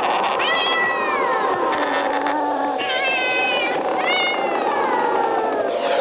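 Cats yowling: three long, drawn-out cries that slide down in pitch, over a steady hiss, as a sound effect on a vinyl record.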